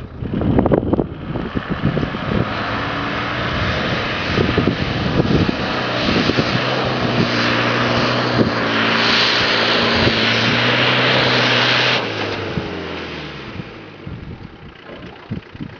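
Land Rover Discovery engine pulling hard under load as the 4x4 climbs a steep loose slope, a steady engine note under a loud hiss. About twelve seconds in the engine note and hiss drop away.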